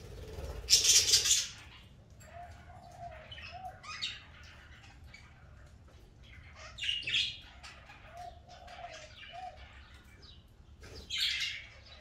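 Pet budgerigars chirping and chattering on and off, with a loud rustle about a second in and another near the end.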